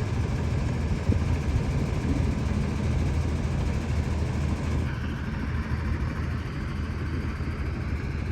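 A steady, low engine hum with a hiss over it. The higher hiss drops away about five seconds in.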